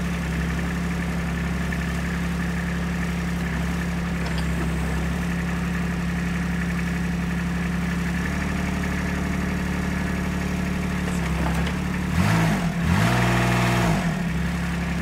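Kubota RTV utility vehicle engine idling steadily, then revving up and dropping back briefly about twelve seconds in.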